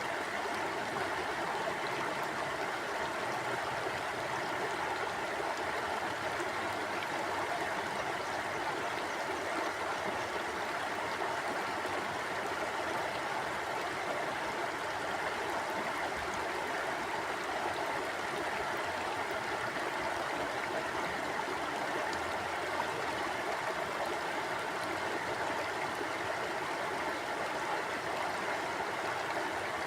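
Mountain stream flowing over rocks: a steady, unbroken rush of water.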